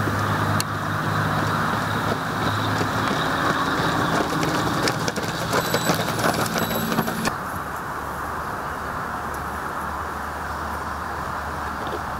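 Steady outdoor background noise with a low engine-like hum, which cuts off abruptly about seven seconds in while the noise carries on a little quieter.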